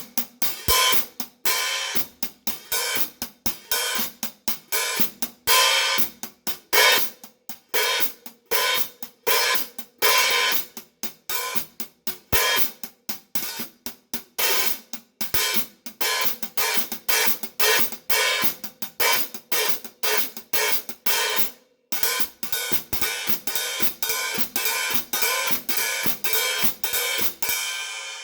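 Paiste 15-inch 3000 Heavy hi-hats played with sticks in a steady rhythmic pattern of short, crisp strokes, several a second, with a few longer open washes. There is a brief stop about three-quarters of the way through, then a denser, even stroke pattern.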